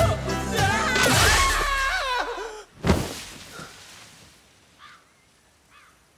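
A song with singing cuts off abruptly, then a single heavy thud of a man's body hitting the ground after falling from a roof, followed by near quiet with a few faint small sounds.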